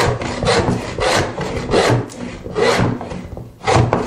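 Plow plane cutting a groove in wood with short, choppy strokes, each stroke a rasping shear of the iron through the grain, a little over one a second.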